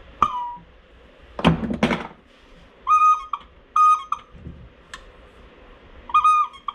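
Rebuilt first-generation Cummins diesel vacuum pump, the cam-and-pushrod type with two diaphragm pods, turned by hand and giving short whistling tones, three of them each under half a second, as it draws air: the sign that the pump is working. Two bursts of handling clatter come about a second and a half in.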